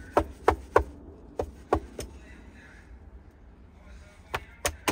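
Knocking on a window pane: three quick sets of about three sharp raps each, the third set near the end.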